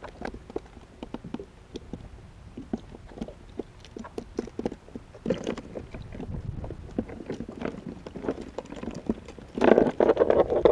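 Irregular knocks and clicks in a fishing kayak, with a louder, denser burst of noise about three-quarters of a second before the end.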